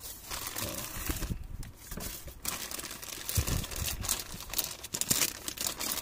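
Clear plastic zip-lock bag crinkling and crackling in irregular bursts as hands handle it and pull it open.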